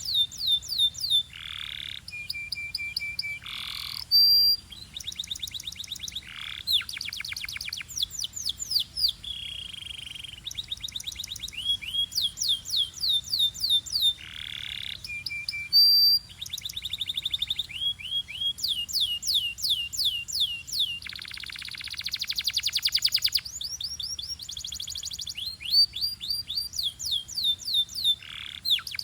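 Domestic canary singing: a continuous song of phrases of rapid, evenly repeated down-slurred notes and fast trills, with a few short held lower notes in between, changing from one phrase type to the next every second or two.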